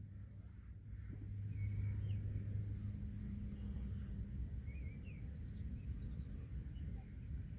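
Small songbirds chirping, with short high calls scattered through the whole stretch, over a low steady hum and rumble.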